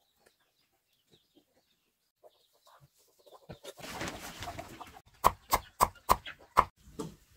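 Chicken clucking: a quick run of about eight loud clucks, three to four a second, about five seconds in, after a short stretch of rustling noise.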